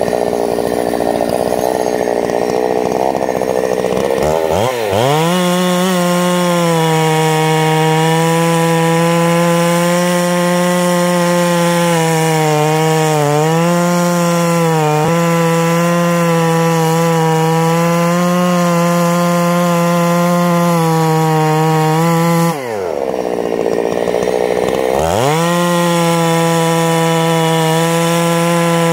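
Ported Husqvarna 272XP two-stroke chainsaw (about 72 cc) cutting at full throttle with the bar buried in a large log, holding a steady high pitch. About four seconds in it revs up into the cut; a few seconds before the end the revs fall away sharply and then climb back as it goes into the wood again. The owner thinks the chain oiler quit completely during these cuts, leaving the chain running dry.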